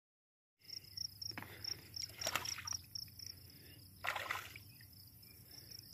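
Insects chirping in a steady, high, rapid pulse over calm lake water, with a few short splashes of a topwater lure worked across the surface, the loudest at about two and four seconds in. The sound cuts in after a moment of silence.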